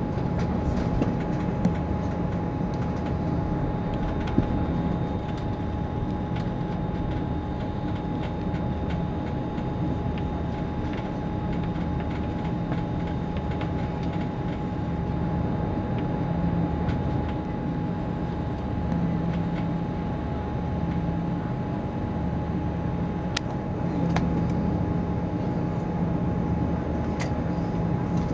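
Steady cabin noise of an Airbus A340-300 taxiing, its four CFM56 engines at idle thrust heard through the fuselage as a low drone with a constant high tone over it.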